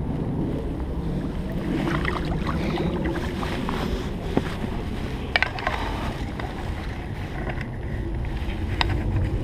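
Wind rumbling on a body-worn camera's microphone, with jacket fabric brushing over it and a few sharp clicks and knocks as the wearer moves.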